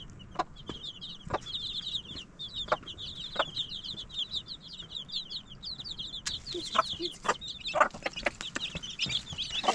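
A brood of chicks peeping nonstop in fast, high cheeps, while the mother hen gives short clucks now and then, more often toward the end.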